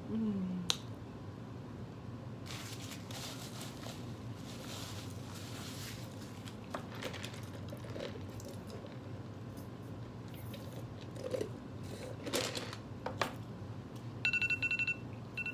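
Soft chewing and handling of fast food with a few scattered clicks and knocks. About a second from the end, a tablet countdown timer's alarm starts: a quick run of high beeps, marking the end of the timed challenge.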